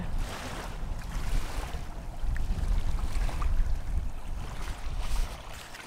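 Wind rumbling on the microphone over the steady wash of small waves lapping a sandy shore.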